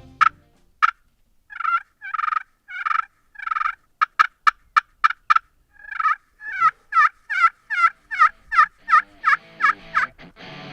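Turkey yelping: two single notes, four longer yelps, a quick run of sharp clicking notes, then a long, even run of about a dozen yelps at roughly three a second.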